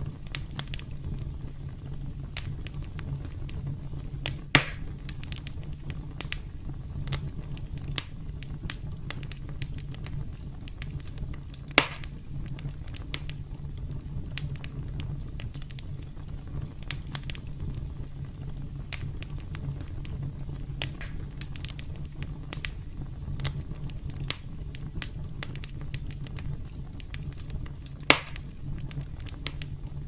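Campfire crackling: frequent small snaps over a steady low rumble, with three much louder pops, about four seconds in, about twelve seconds in and near the end.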